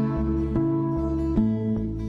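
Background music: a gentle acoustic guitar piece with plucked notes and chords changing about every second.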